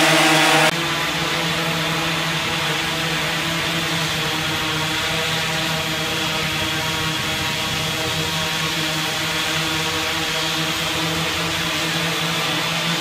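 Multirotor drone hovering, its propellers giving a steady, evenly pitched buzzing hum. Under a second in the sound drops abruptly to a quieter level and carries on unchanged.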